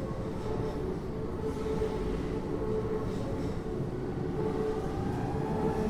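Keio 8000 series electric train running, heard from inside the car above its GTO-VVVF main controller: a steady rumble of wheels on rail with a constant hum, slowly getting louder.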